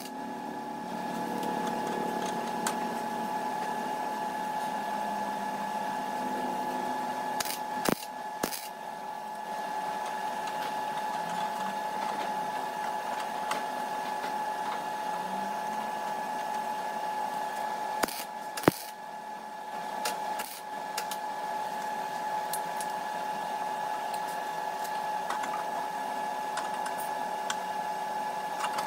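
MIG welder working on a rusted steel wheel arch: a steady buzzing crackle over a constant high hum. Sharp metallic clicks break in about eight and eighteen seconds in.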